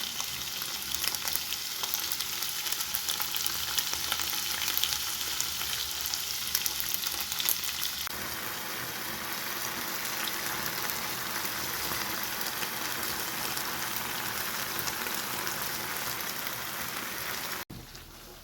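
Cornflour-coated beef steak pieces frying in a little vegetable oil in a pan: a steady sizzle full of fine crackles that turns into a smoother hiss about halfway through, then cuts off abruptly near the end.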